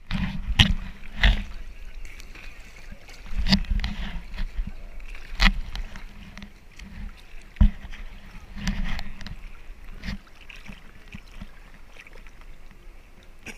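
Sea water sloshing and slapping against a GoPro camera housing as it bobs at the waterline, with a sharp splash every second or two. The splashes are strongest in the first half and weaker near the end.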